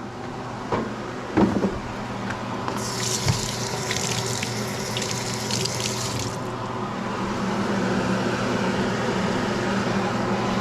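Kitchen tap running into a sink for about three seconds, water splashing, over a steady low hum. A couple of knocks come in the first two seconds.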